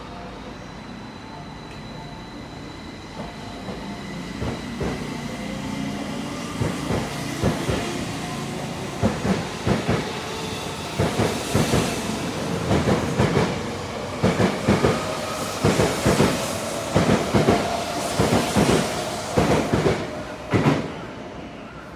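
Tokyo Metro 05 series electric train pulling out and gathering speed: a steady whine at first, then wheels clacking over rail joints from about nine seconds in, the clacks coming quicker as it speeds up, fading near the end.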